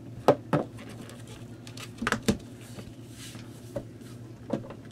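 Knocks and clicks from the unit's metal top panel being handled and set down onto its chassis: two sharp ones in the first half second, a pair about two seconds in, and lighter taps near the end. A steady low hum runs underneath.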